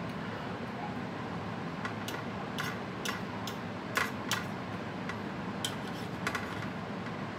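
Metal spoon clinking and scraping against a ceramic bowl while scooping salad: a scattering of short, sharp clinks, the loudest about four seconds in, over a steady low background hum.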